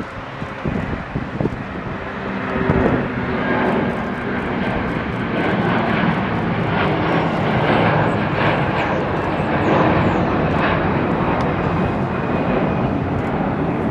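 Jet engines of an Airbus A330-300 airliner, Rolls-Royce Trent 700s, running at high power as the plane passes. The noise builds over the first few seconds and then stays loud.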